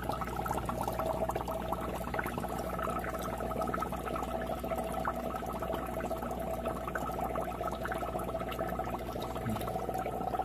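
Air bubbles from two air pumps streaming up through a SURF4 floating algae turf scrubber and bursting at the water surface: a dense, steady fizzing and bubbling, with a steady hum underneath.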